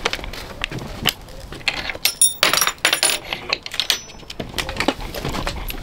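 Footsteps on wooden porch steps, with a plastic carrier bag rustling against the body. Irregular clicks and knocks, plus a brief light metallic jingling about two to three seconds in.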